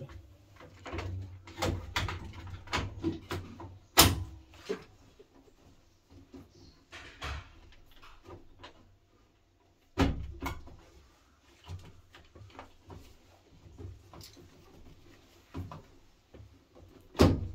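Irregular clicks and knocks of hands working on a Beko washing machine's door and panels, with sharp knocks about four seconds in, about ten seconds in, and near the end.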